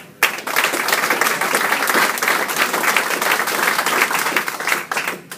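A small seated audience clapping, a dense patter of hand claps that stops just before the end.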